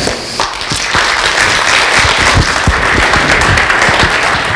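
Congregation applauding, a dense patter of many hands clapping that builds up about half a second in and dies away near the end.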